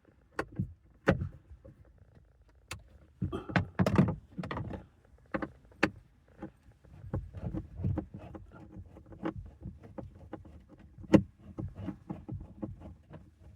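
Irregular clicks, knocks and scraping of a screwdriver and hands working at screws behind a car's plastic dashboard trim. A run of quick small clicks fills the second half, with one sharp knock about eleven seconds in.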